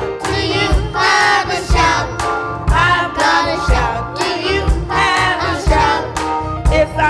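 Gospel worship music: several voices singing over a band, with a steady drum beat about once a second.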